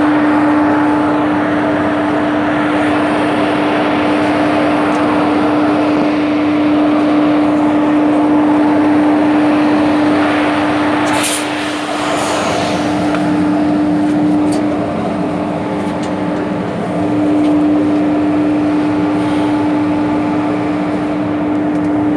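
Indian Railways electric locomotive's machinery running inside the engine: a loud, steady hum and whir with a steady droning tone, and a brief click about eleven seconds in.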